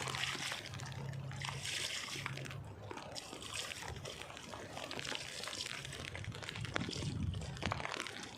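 Water trickling and splashing, with a steady low hum underneath.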